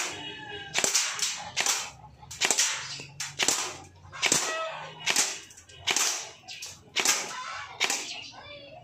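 Upgraded airsoft gun firing single shots at a thick board, about ten sharp cracks a little under a second apart.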